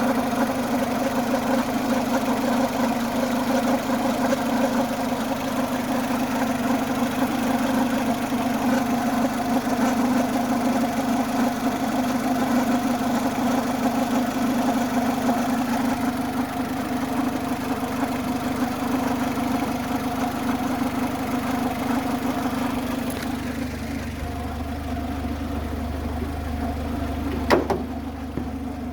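2004 Renault Clio 1.4 16v four-cylinder petrol engine running steadily with a whirring noise whose cause the owner is asking about. A single sharp click sounds near the end.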